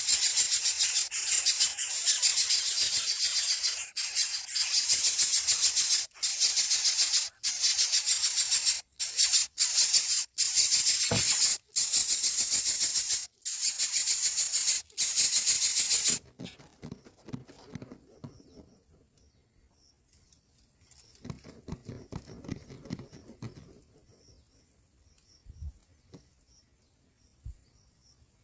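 A loud, dense high-pitched rasping buzz, broken off abruptly several times, stops about sixteen seconds in. Quiet soft rustling and scraping sounds follow, with faint repeated high chirps.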